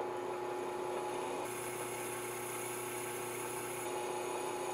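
Drill press running at 990 RPM while a DeWalt 1/4-inch black oxide twist drill cuts dry into 1/4-inch mild steel: a steady machine hum with a constant tone, under the hiss of the bit cutting.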